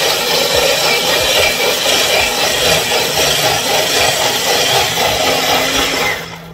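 Chefman electric spiralizer's motor running steadily while it cuts a zucchini into spiral noodles, then cutting off about six seconds in.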